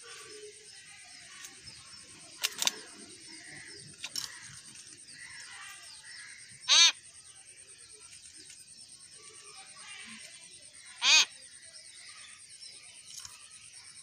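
Common hill myna giving two loud, short calls about four seconds apart, over faint chirping of other birds. Two sharp clicks come before the first call.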